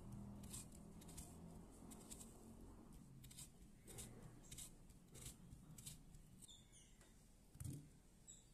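Knife slicing through a peeled yellow cucumber onto a wooden cutting board: a run of faint, crisp cuts, about one or two a second, with a duller thump near the end.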